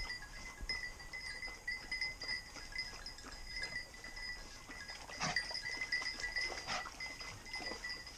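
Small bells on hunting hounds' collars tinkling on and off as the dogs move about a dead wild boar, with a few light knocks and rustles among the stones.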